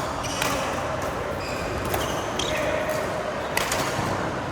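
Badminton rally: rackets striking a shuttlecock with sharp hits about every second and a half, three in all, echoing in a sports hall.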